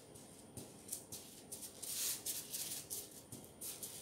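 Hands pressing and rubbing a disc of dough flat on parchment paper strewn with sugar and flour: the paper rustles and crinkles and the sugar grains scrape in uneven strokes, loudest about two seconds in.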